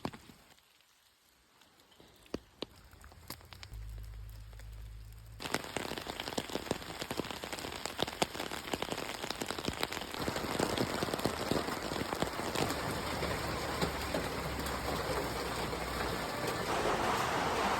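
Rain falling: scattered single drops at first, then a sudden dense, steady patter about five seconds in that keeps building louder.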